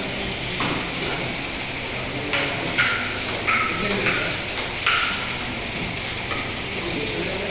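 Celluloid-type table tennis ball clicking off the table and the rubber paddles during a doubles rally: single hits about half a second in and near the end, and a quick run of hits roughly every half second from a couple of seconds in until about five seconds.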